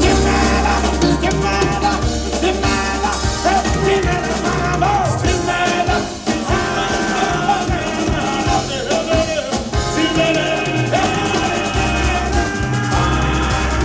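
Music with a singing voice over a deep bass line. The bass drops out about five seconds in and comes back near the end.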